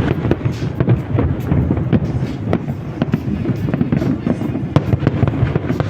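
Fireworks going off in a dense, rapid series of sharp bangs and crackles over a steady low rumble.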